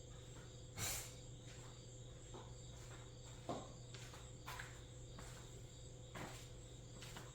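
A few scattered faint knocks and clicks over a steady low hum, the loudest knock about a second in.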